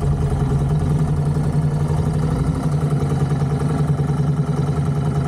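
Royal Enfield Continental GT 650's parallel-twin engine idling steadily.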